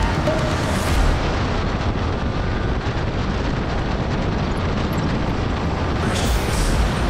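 Wind buffeting the microphone of a motorcycle riding at speed: a steady, dense low rumble.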